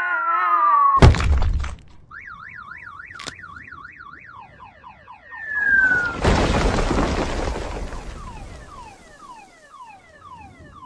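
A loud crash, then a fast warbling alarm-like tone for about three seconds, then a second, longer crash that fades out with a run of repeated falling whistles.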